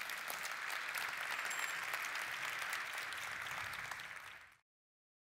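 Audience applauding: dense, steady clapping from a large crowd that is cut off abruptly near the end.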